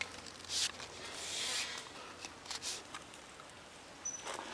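Soft rustling and a few light clicks of handling noise as a knife is brought to a raw chicken wing on a wooden chopping stump, with a brief thin high tone near the end.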